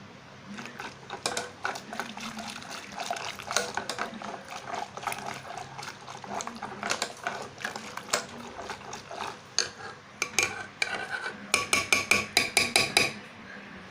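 Boiled pumpkin and tomato being mashed in a pot with a ghutni (hand masher): irregular knocks and scrapes against the pot. Near the end comes a quick, even run of ringing clicks.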